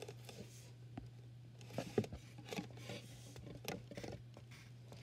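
Colored pencil scratching and tapping on paper on a clipboard in short, irregular strokes, with a faint steady low hum beneath.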